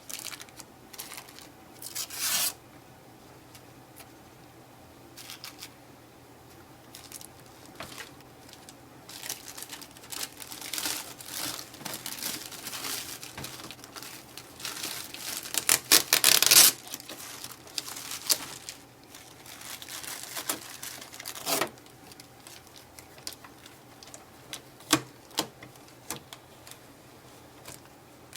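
Packing tape being peeled and protective plastic film crinkled off a new inkjet printer, in irregular rustling, tearing bursts, the loudest about halfway through, with a few sharp clicks in the second half.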